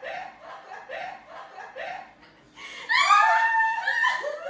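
People laughing: a run of short, quieter laughs, then a louder, higher burst of laughter about three seconds in.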